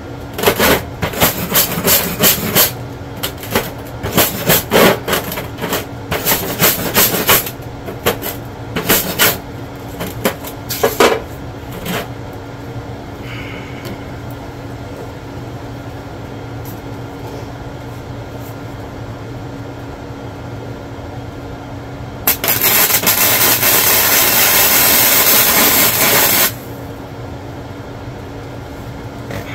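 A hand tool strikes and works the steel bar in quick metallic strokes for about the first twelve seconds. Over a steady hum, electric arc welding on the chair's steel torsion spring bar then crackles and hisses for about four seconds before cutting off suddenly.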